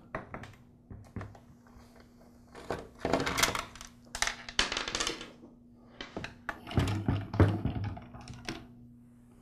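Screwdriver backing screws out of a Black and Decker CST1200 string trimmer's plastic handle housing: scattered clicks and rasping as the screws turn, and small clinks of screws landing on a wooden workbench.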